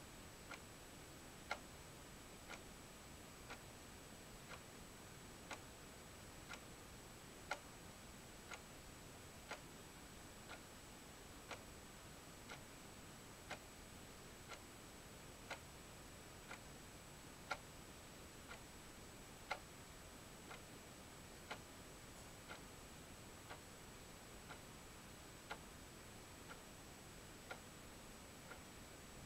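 Clock ticking steadily, about two ticks a second, every other tick louder, against near silence with a faint steady high-pitched tone.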